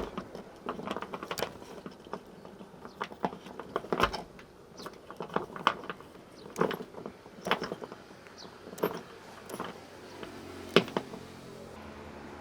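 Tamarind pods being picked and handled: irregular sharp clicks and snaps, one or two a second, with the sharpest snap near the end.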